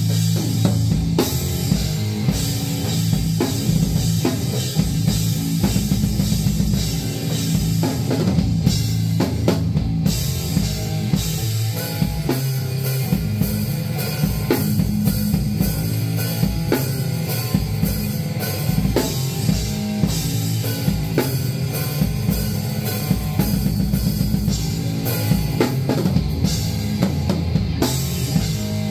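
Acoustic drum kit played at a steady rock beat, with bass drum and cymbal hits, along with a rock song's bass and guitar parts.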